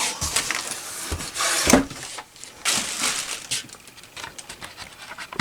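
Rustling and scraping of packing material as a boxed sewing machine is handled and lifted out, with a couple of dull knocks in the first two seconds.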